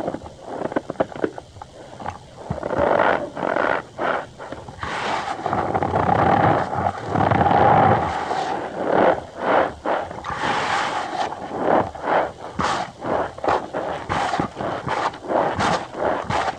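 Cornstarch powder squeezed and pressed by hand, giving repeated short squeaks and crunches, with a longer continuous squeaky rub around the middle.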